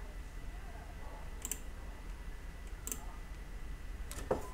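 A few isolated sharp clicks of a computer mouse, one every second or so, over a faint steady low hum.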